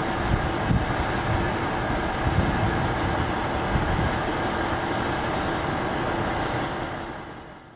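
A motor running steadily, with a low rumble and a constant tone over it, fading out over the last second.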